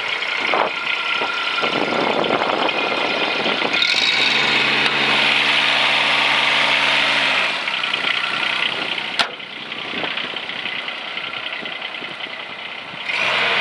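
Mini excavator's engine running. A louder, steady pitched hum sets in about four seconds in and drops away after about three and a half seconds, and there is a single sharp click later on.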